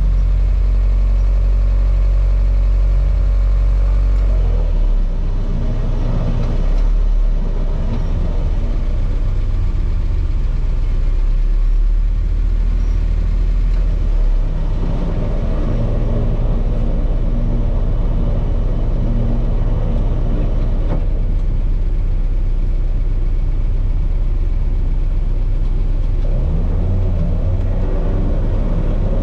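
Lada Niva engine running steadily, its note changing several times as the revs shift.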